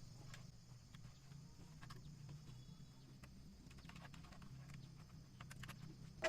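Near silence: a faint steady low hum with a few light scattered clicks.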